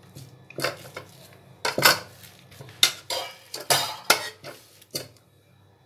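Metal potato masher pressing and mashing boiled carrots and potatoes in a pressure-cooker pot. About ten irregular strokes sound as the masher's head clanks and scrapes against the pot's metal base. The strokes stop about five seconds in.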